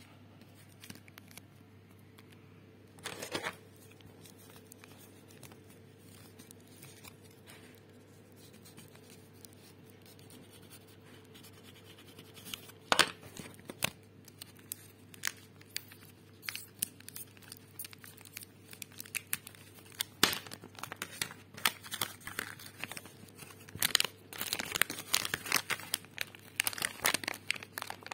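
Shiny metallised anti-static packet holding a DDR4 laptop RAM stick being handled and crinkled: a short rustle early on, a sharp crackle around the middle, then dense crinkling and crackling of the plastic through the last third.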